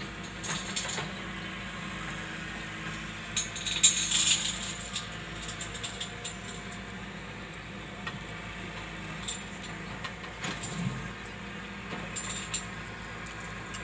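Rustling and clicking handling noise close to the microphone over a steady low hum, loudest in a cluster about four seconds in.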